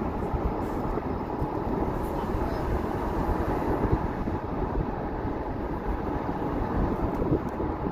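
Steady road noise of a car driving at speed, tyres on the road and the engine running, heard from inside the car.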